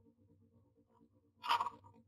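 Dry grass and straw of a common myna's nest crackling in one short burst about a second and a half in, as the bird works the nesting material with its beak. A faint steady hum underneath.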